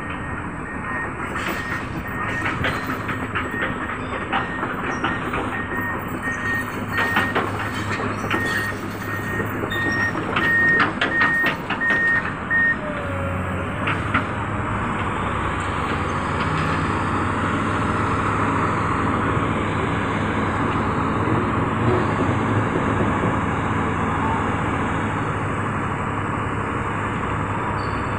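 Truck crane's diesel engine running, with an intermittent warning beep and scattered metallic clanks for roughly the first twelve seconds. About thirteen seconds in, the engine note rises and then holds steady.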